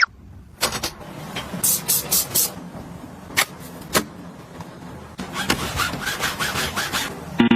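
Household items being handled: a series of sharp clicks and taps, then a busier stretch of noisy handling sounds in the second half, over a steady low hum.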